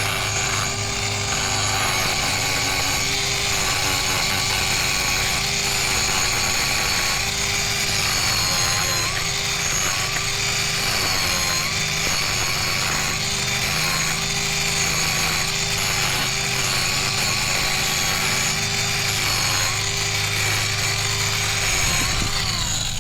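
Mini angle grinder running steadily as it grinds down a miniature horse's overgrown hoof. Its whine dips briefly about every second.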